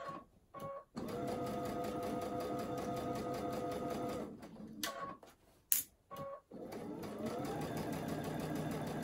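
Computerized sewing machine basting along a fabric edge at a long stitch length. It stitches steadily for about three seconds, stops for a couple of seconds with a few sharp clicks in the pause, then starts up again, speeding up, and stitches steadily.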